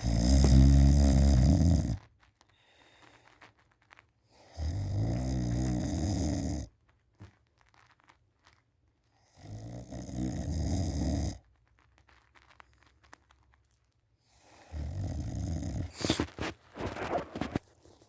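A person in deep sleep on their back snoring loudly: four long, rattling snores about every four to five seconds with quiet breaths between, the last one longer and more ragged with sharp catches in it.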